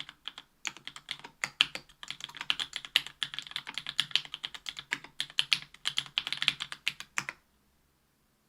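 Typing on a mechanical keyboard with stock JWK Black 62 g linear switches in an aluminium plate, under GMK keycaps. It is a fast run of keystrokes with a couple of short pauses, and it stops about seven seconds in.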